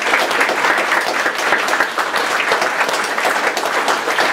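Congregation applauding: many people clapping together in a dense, steady patter.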